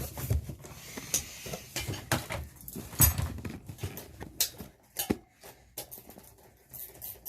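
Scattered knocks and clicks of tools and metal parts being handled while a motorcycle tyre is refitted on a tyre changer, with the loudest knock about three seconds in.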